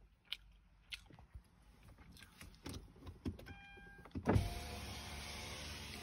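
A car's electric window motor running as the side window is lowered: a sudden jolt about four seconds in, then a steady whine for about two seconds that lets the outside hiss in.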